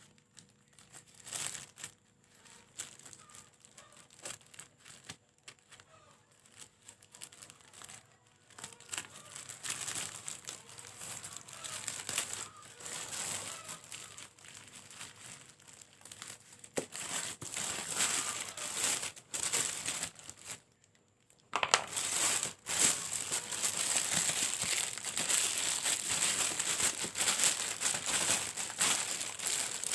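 A parcel's packaging being torn open and handled: irregular crinkling and rustling, sparse at first, with a short pause a little before two-thirds of the way in, then denser and louder to the end.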